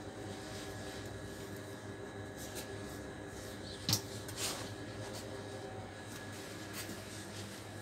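Steady background hum of a shop interior, with a single sharp knock about four seconds in.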